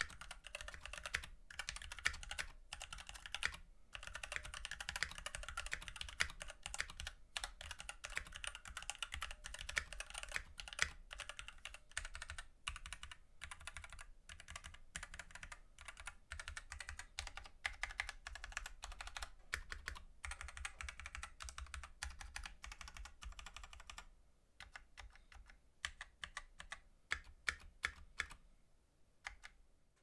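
Typing on a Havit KB487L mechanical keyboard with Jixian red linear switches: a fast, steady patter of keystrokes. About 24 seconds in it thins to scattered key presses, and it stops near the end.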